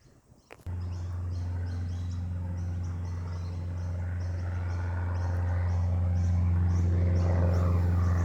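Light aircraft's piston engine and propeller droning steadily as the plane takes off, coming in abruptly under a second in and slowly growing louder. A short high chirp repeats about twice a second above it.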